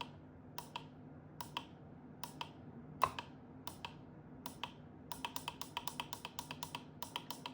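Short sharp clicks as an infrared transmitter is fired at an IR receiver, each click with a brief falling ring. At first they come singly, a second or so apart; about five seconds in they speed up to a rapid run of about six a second.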